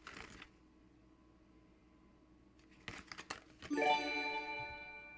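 A brief rustle of package wrapping at the start, then a few light clicks. About three and a half seconds in, a sustained musical chord sounds and slowly fades away.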